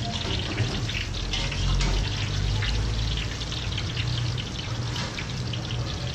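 Cashew nuts deep-frying in a large kadai of hot oil: a steady crackling sizzle over a low hum.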